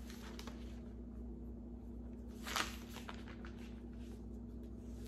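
A short rustle of a paper book page being turned, about halfway through, with a few faint handling clicks near the start, over a low steady hum.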